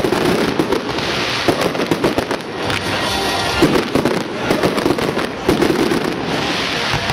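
Fireworks display: aerial shells bursting in a continuous barrage, a dense run of bangs and crackles with no break.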